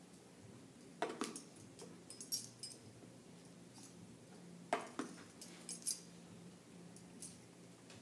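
Sharp clicks and clatters of a metal tablespoon and a plastic water jug being handled while water is measured out, in two clusters about a second in and near the middle, with one more near the end, over a faint steady room hum.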